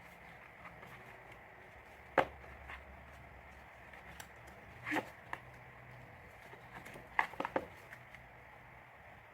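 Handling sounds from unboxing album packaging: a few sharp taps and knocks, one about two seconds in, another about five seconds in, and a quick cluster near the end, over a low steady hiss.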